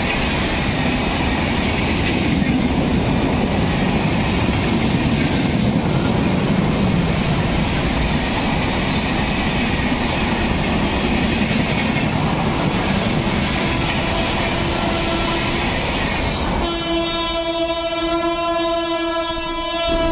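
Express train coaches rushing past at speed, a steady roar with wheel clatter on the rails. About three-quarters of the way through, an electric locomotive's horn sounds one long, steady blast that drops in pitch at the end as the locomotive passes.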